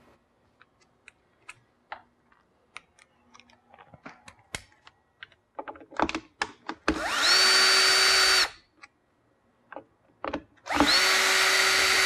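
Makita cordless drill-driver backing out the Phillips screws that hold the battery: a few light handling clicks, then the motor spins up and runs steady for about a second and a half, twice.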